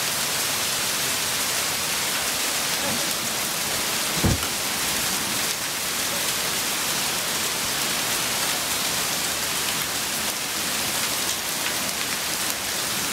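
Steady downpour of rain and small hail falling on the yard: an even hiss with faint fine pattering. A brief low bump about four seconds in.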